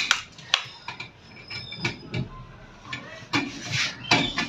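A screwdriver and the sheet-metal parts of a laminating machine being worked at the heater rod's bracket, making irregular sharp clicks and rasping scrapes as the rod is unfastened.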